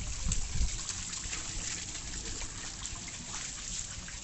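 Water trickling and spattering, a steady noise with a few low thumps in the first second.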